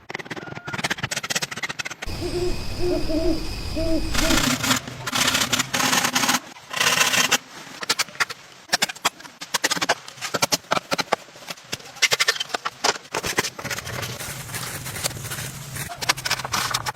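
Irregular clicking and knocking throughout, with a short series of low hooting calls between about two and four seconds in.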